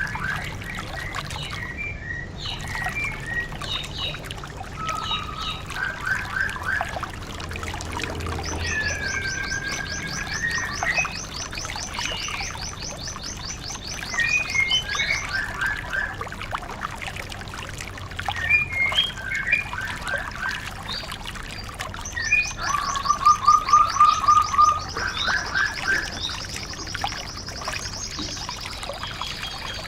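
White-eye (Zosterops, 'pleci') song: quick chirps and short varied phrases, with fast high trills about nine seconds in and again from about 22 seconds to near the end, over a steady trickle of water. The loudest part is a rapid run of notes around 23–24 seconds.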